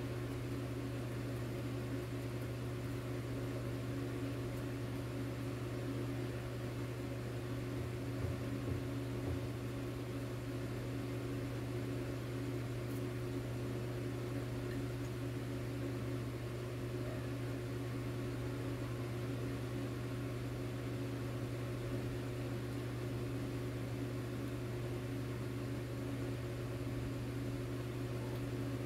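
Steady low hum of a running appliance motor, unchanging, with a fainter drone above it.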